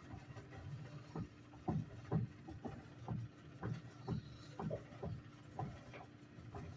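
GE washing machine running with a steady hum and a repeated knocking grind, about two knocks a second: the abnormal grinding noise of a fault in the washer.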